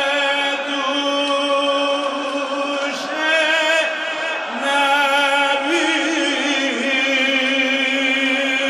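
A male mourning eulogist (maddah) chanting a Shia Muharram lament, one voice holding long, wavering notes whose pitch lifts about halfway through and sinks back.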